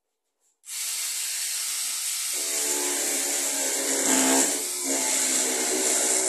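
Small handheld power saw switching on abruptly and running steadily as it cuts into a thin board, a high-pitched whine over a lower hum that sets in about two seconds in.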